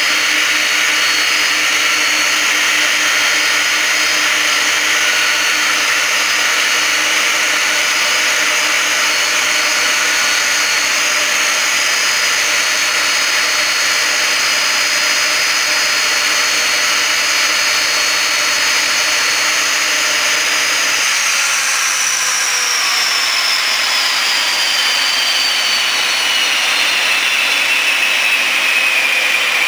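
Boeing 767 jet engines running with a loud, steady whine. About two-thirds of the way through, a high whine starts falling steadily in pitch.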